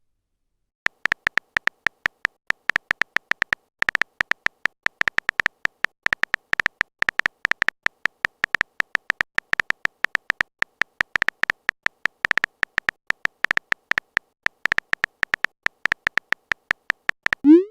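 Phone-keyboard typing sound effect: a long run of quick, irregular high ticks, several a second, as a chat message is typed out. Right at the end a short rising swoop sounds, typical of a message being sent.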